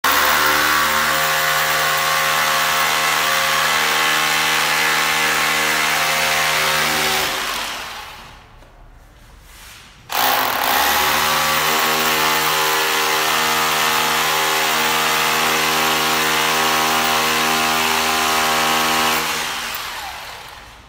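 Corded electric drill boring into a plastered wall, running at steady speed in two long runs. The first run lasts about seven seconds and winds down. The drill starts again suddenly about ten seconds in, runs for about nine seconds, then winds down.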